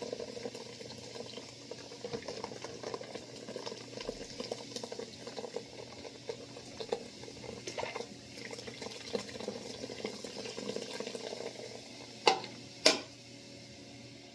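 Canada Dry Cranberry Ginger Ale poured from a can into a stainless steel bowl of ice and soda, fizzing and crackling steadily. Two sharp knocks near the end.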